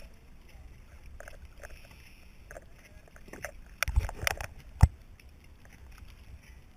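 Water lapping and splashing around a camera at the surface, with short ticks of droplets on it. A little past halfway comes a cluster of loud knocks and splashes, the loudest a single sharp knock about five seconds in.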